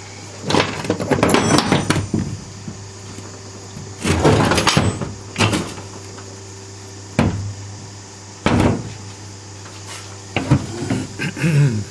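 Metal engine parts being handled during a VW engine teardown: bursts of clattering and several single knocks as parts are moved and set down, over a steady low hum.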